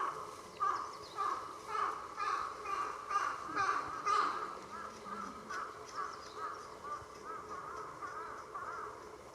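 Grey-headed woodpecker nestlings begging for food: a run of harsh calls repeated about twice a second, loudest around four seconds in, then softer, quicker wavering calls in the second half.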